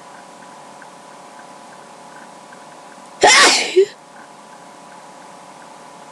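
A single loud human sneeze about three seconds in, one of a sneezing fit, with a short sharp burst at its tail.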